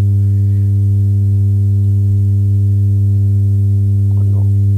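Loud, steady electrical mains hum on the recording: a low drone with a ladder of evenly spaced overtones that never changes.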